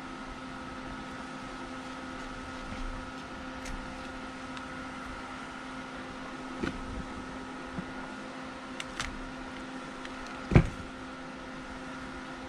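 A steady machine hum throughout, with a few faint taps and one sharp, louder thump about ten and a half seconds in, while hands press potting soil down around a cutting in a plastic nursery pot.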